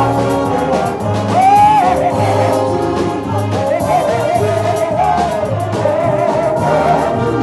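Live church band music: saxophones, trumpets and a drum kit playing to a steady beat, with singing carrying the melody over it.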